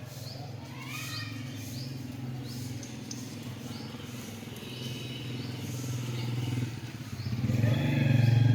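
A motor vehicle engine running steadily nearby, rising in pitch about a second in and growing louder near the end. Short high chirps repeat over it.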